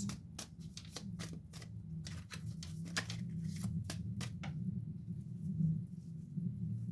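Tarot cards being handled and shuffled: a quick, irregular run of card snaps and flicks for about four and a half seconds, then they stop, over a low steady hum.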